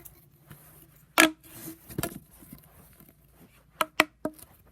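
Plastic pop tube fidget toy being stretched and squashed, its ribbed sections snapping with sharp pops: one loud pop about a second in, another about two seconds in, and three quick ones near the end.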